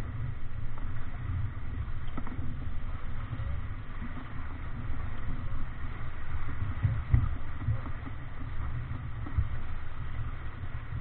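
Strong wind buffeting the camera microphone on a sailing yacht heeled over and beating through rough, choppy water, with the rush and hiss of waves and spray along the hull. The level rises and falls with the gusts, with a heavier thump about seven seconds in.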